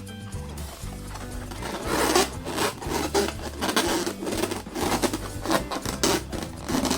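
Hands rubbing a latex balloon in quick repeated strokes, a dry squeaky rubbing that starts about two seconds in, over background music with a steady bass line.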